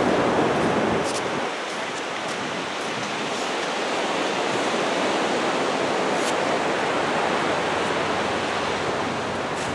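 Small waves washing onto a sandy beach: a steady rush of surf, slightly louder in the first second, with a few faint ticks.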